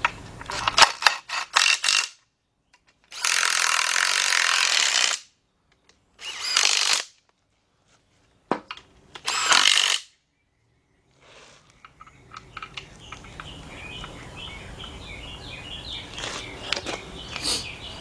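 Cordless power driver with a 9/16 socket running in the bell-housing bolts that join the transmission to the engine. It makes three bursts: a long one of about two seconds, then two shorter ones, with clicks of the tool and bolts before them.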